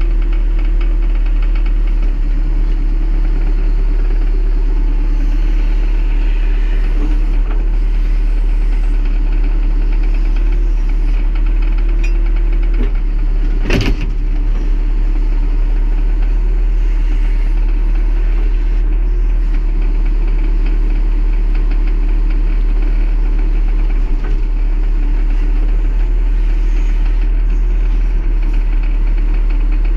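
Tractor backhoe's engine running steadily under work while the backhoe digs, with a single sharp knock about halfway through.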